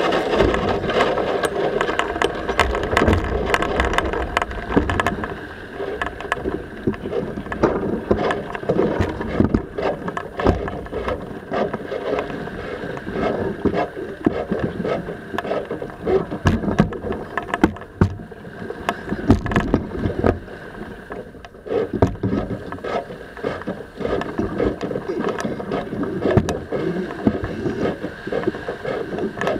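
Sailing yacht under way: a continuous rush of wind and water past the hull, with many short clicks and knocks from gear and crew on deck.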